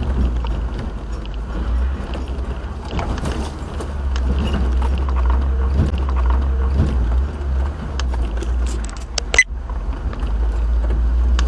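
Vehicle driving, heard from inside: a steady low engine-and-road rumble with scattered clicks and rattles, and a sharp knock a little after nine seconds in.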